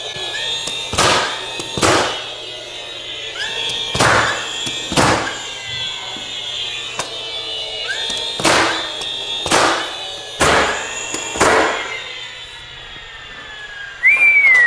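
DeWalt cordless finish nailer firing nails into the wall's trim rail, about eight sharp shots, often two about a second apart. A short whistle is heard near the end.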